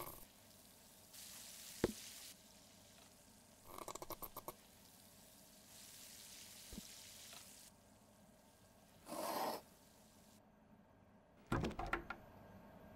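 A string of short, separate kitchen sound effects: a sharp knock about two seconds in, then sputtering squirts from a plastic ketchup squeeze bottle around four and nine seconds. A rattling clatter near the end, as the fridge is opened.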